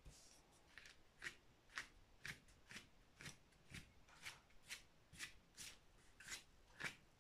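A large wet paintbrush brushing paint onto the painting surface in short strokes, about two a second, beginning about a second in.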